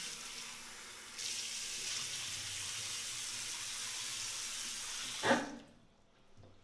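Water running from a single-lever chrome mixer tap into a bathroom washbasin as a steady hiss. It grows stronger about a second in and stops with a brief thump a little past five seconds.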